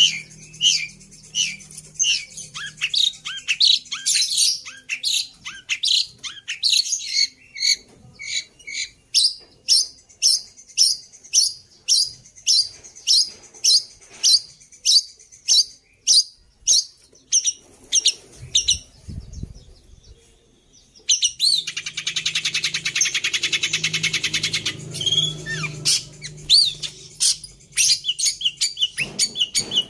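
Long-tailed shrike singing a run of sharp, high chirps repeated about two to three times a second, mimicking the sirtu. After a brief pause and a few low thumps, it breaks into a rapid buzzing chatter a little past the middle, then goes back to the repeated chirps near the end.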